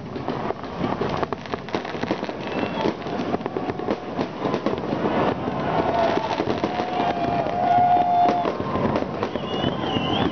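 Aerial fireworks going off in a dense, continuous run of crackles and pops. A held, wavering tone rises over them for about two seconds past the middle, the loudest stretch.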